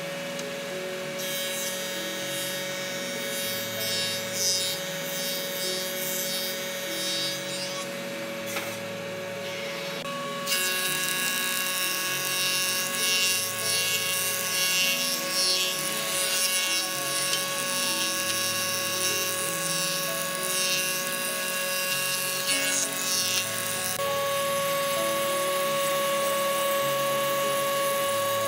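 Industrial thickness planer running and planing wooden boards: a steady machine whine with the rough hiss of the cutterhead taking shavings, changing abruptly a few times. Background music with a slow stepping bass line plays underneath.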